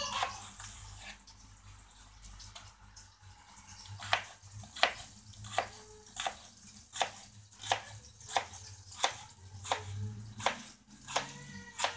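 Kitchen knife chopping a cucumber on a wooden cutting board. Quiet, light cuts at first, then from about four seconds in a steady run of sharp knife strikes on the board, about three a second.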